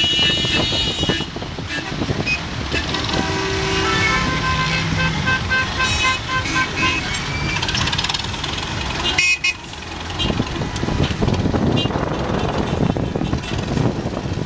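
Busy road traffic: vehicle engines running, with horns tooting several times at different pitches and people's voices mixed in.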